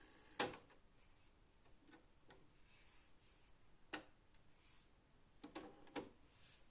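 A few sharp mechanical clicks from a Technics RS-M205 cassette deck being operated by hand: one loud click about half a second in, another near four seconds, and a short cluster of clicks near six seconds.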